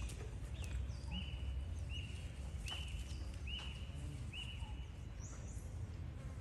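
A series of short, high-pitched animal calls, evenly repeated about once every 0.8 seconds, each one dropping briefly in pitch and then holding steady, over a constant low rumble.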